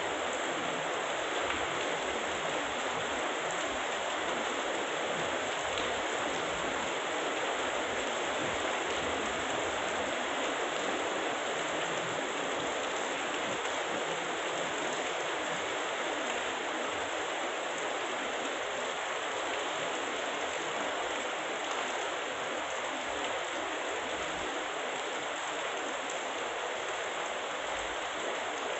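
Heavy rain falling in a steady downpour, an even rushing hiss that does not let up.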